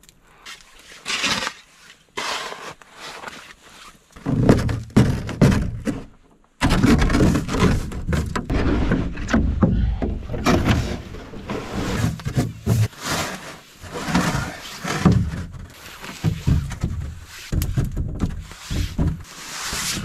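Irregular rustling, scuffing and dull thumps of a person moving about in snow and handling camp gear, with heavy low rumbling on the microphone.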